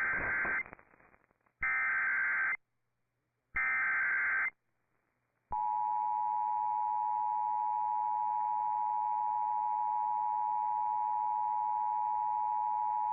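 Emergency Alert System signal announcing a severe thunderstorm warning: three short bursts of SAME header data tones, each about a second long and about a second apart, then the steady two-tone EAS attention signal, which starts about five seconds in and holds unchanged.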